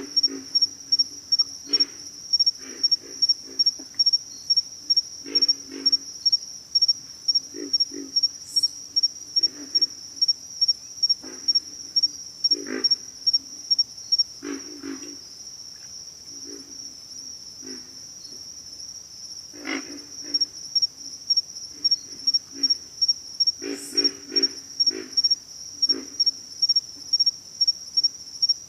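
Pig frogs grunting: short, low, hoarse grunts, singly and in quick runs, at irregular intervals. Over them an insect chirps steadily at a high pitch about twice a second, falling silent for a few seconds midway and then resuming.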